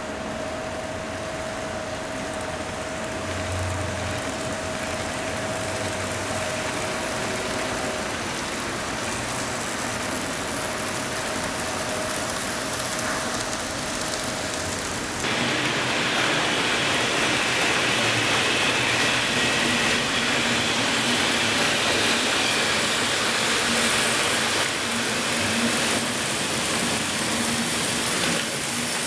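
Model trains running on layout track: a steady rolling hiss of wheels on rails with a thin motor whine. The noise steps up in loudness about halfway through.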